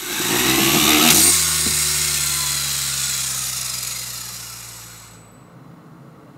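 A launcher driven by two BuWizz electric motors whirs as it spins up a LEGO Technic top, loudest about a second in. The released top then spins in a bowl with a whirring hum that dies away over a few seconds.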